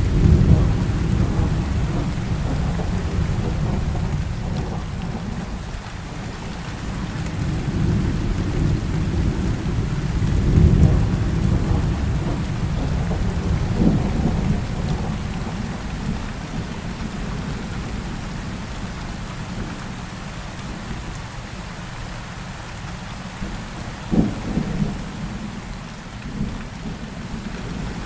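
Heavy rain falling steadily under a thunderstorm, with low rolling thunder rumbling several times and one sharper thunder crack late on.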